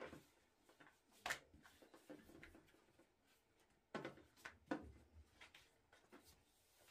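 Long thin wooden rolling pin (oklava) rolling on a flour-dusted wooden table with baklava dough sheets wrapped around it: faint rubbing with a few soft knocks, the clearest about a second in and again around four to five seconds in.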